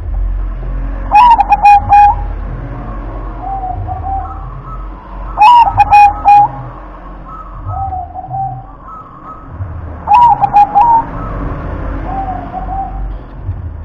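Zebra dove (perkutut) singing in its cage. Three loud cooing phrases come about four and a half seconds apart, each followed by softer, lower coos.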